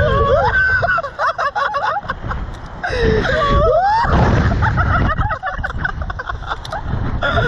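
Two men screaming, whooping and laughing in wavering high voices while flung through the air on a reverse-bungee slingshot ride, with wind buffeting the on-ride microphone as a low rumble.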